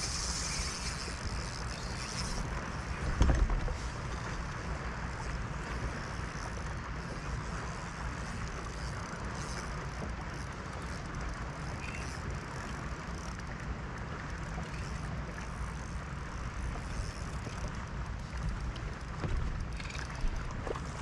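Steady rush of wind and lapping water around a small boat, with one knock about three seconds in.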